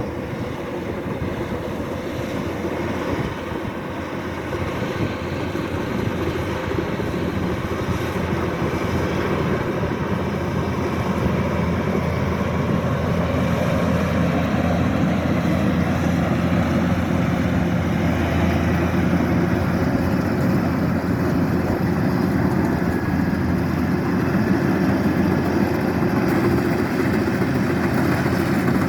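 Kubota combine harvester's diesel engine and threshing machinery running steadily, growing gradually louder through the first half and then holding.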